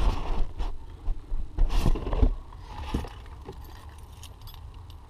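Handling noise from a GoPro camera being moved and set in place: a handful of knocks and scrapes in the first three seconds, then a quieter steady low rumble.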